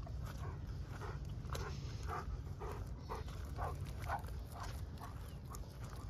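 A German Shepherd dog making a regular series of short vocal sounds, about two a second, over a low steady rumble.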